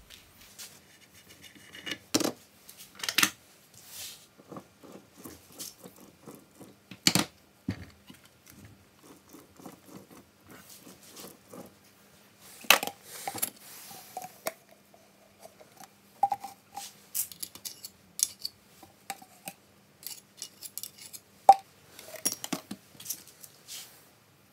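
Steel parts of a Boxford lathe headstock clinking, tapping and knocking as they are handled and fitted onto the spindle by hand: scattered irregular clicks, with a few louder knocks.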